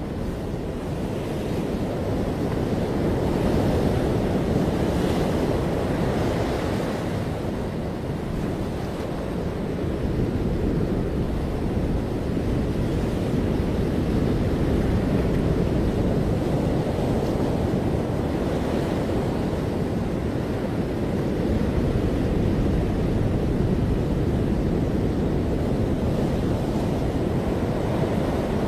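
Ocean surf washing onto a beach, a continuous low rush of breaking waves that swells and eases slowly, with wind buffeting the microphone.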